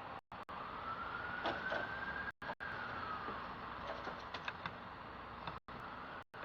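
Steady background noise, a constant hiss with a faint whine that slowly rises and falls once over about three seconds. The noise is cut by several brief dropouts where the sound goes dead, and a few faint ticks come through.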